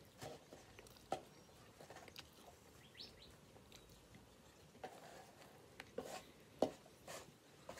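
Faint sounds of a man biting and chewing a hamburger: soft wet smacks and clicks scattered through, the loudest about six and a half seconds in. A brief faint high chirp about three seconds in.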